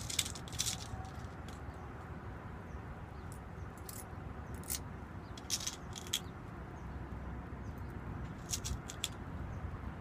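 Small, sharp metallic clicks and ticks at irregular intervals as brass pin-tumbler pins are set one by one into a lock cylinder's plug with tweezers, over a steady low rumble in the background.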